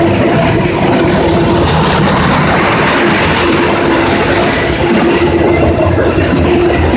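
A long CSX autorack freight train rolling past close by, a loud, steady rumble of wheels and railcars on the track. A mid-pitched tone comes and goes over the rumble.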